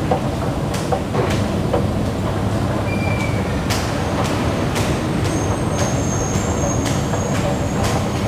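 Escalator running, a steady mechanical rumble with sharp clacks about once a second as the steps travel up. A faint high-pitched whine comes in about five seconds in.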